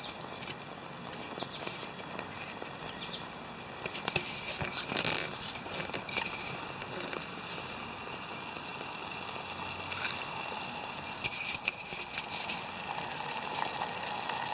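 Steak fajita filling simmering and bubbling in a steel canteen cup over a burning Esbit fuel tab, a steady soft hiss. A few brief louder noises come about four and eleven seconds in.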